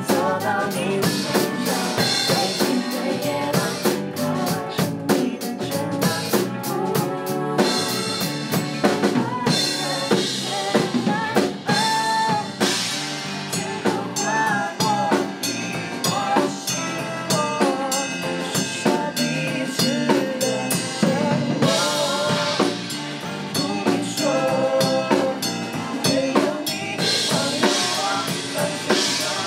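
A pop duet sung live by a man and a woman over a full band: drum kit, electric guitar and keyboards, with the drums prominent.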